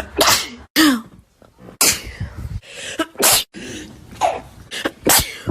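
A string of human sneezes, about five loud, sharp ones in quick succession at uneven spacing, with a few weaker ones between.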